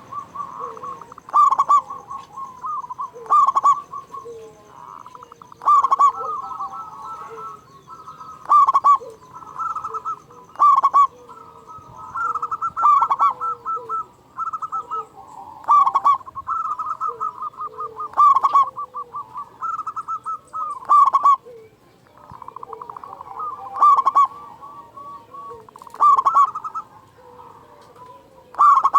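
Zebra doves (perkutut) cooing continuously: runs of quick rolling coo notes, punctuated about every two to three seconds by a loud, accented note, the full song used to stir other doves to call.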